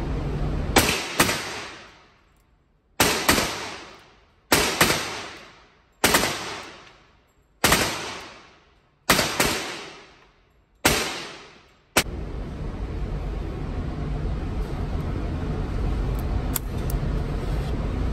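Ruger Speed Six revolver in 9mm, fired single-action: a string of gunshots about one to one and a half seconds apart, some coming in quick pairs. Each shot rings out with a long echoing tail from the indoor range. The shots stop about twelve seconds in, and a steady background noise follows.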